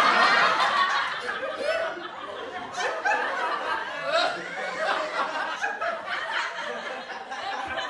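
People laughing and chuckling, loudest in the first second.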